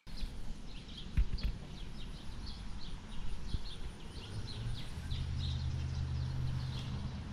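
Outdoor ambience of many short bird chirps over a low rumble, with a steady low hum coming in about five seconds in.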